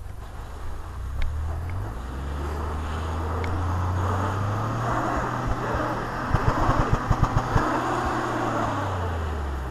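Ford F-150 EcoBoost twin-turbo V6 revving as the pickup tries to climb out of deep snow where it is stuck. The engine note rises about a second in, holds high, then drops away near the end, with a quick run of thumps around two-thirds of the way through.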